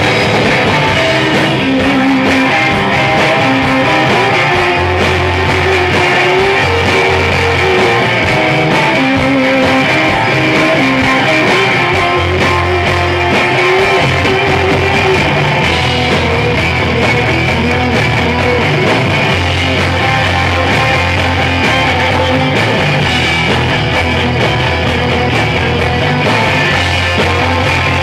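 Live rock band playing: electric guitars over bass guitar and drums, loud and even.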